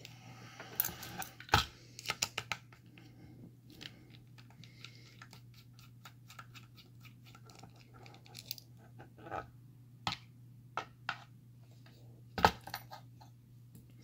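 Scattered small metal clicks and clinks from a padlock and small hand tools being handled, with two sharper knocks, one about a second and a half in and one near the end, over a faint steady low hum.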